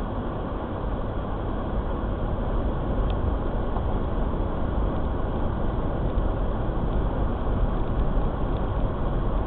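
Steady road noise and engine rumble of a car driving along.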